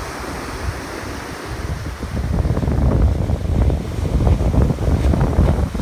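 Surf breaking and washing up the beach, with wind buffeting the microphone as a heavy low rumble; it grows louder about two seconds in.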